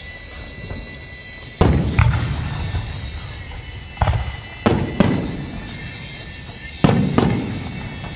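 Aerial firework shells bursting overhead: about seven sharp booms, several in quick pairs, each trailing off in a rolling echo.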